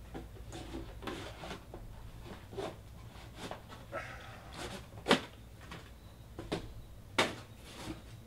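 Scattered light clicks and knocks from off-camera handling, the two loudest about five and seven seconds in.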